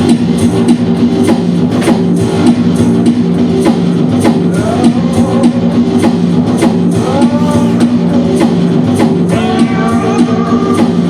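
Live rock band playing: drum kit keeping a steady beat under guitar and bass, with a wavering sung melody coming in about four seconds in.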